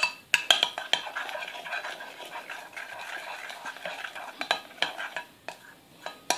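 Metal spoon stirring glue and liquid starch in a glass measuring jug as the mixture thickens into slime. There are sharp clinks of spoon on glass in the first second and again near the end, with a steady stirring scrape in between.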